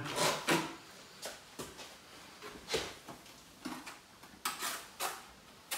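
Short scattered scrapes and knocks of tiling work: a notched trowel scraping tile adhesive on the wall at the start, then tools and materials being handled and set down.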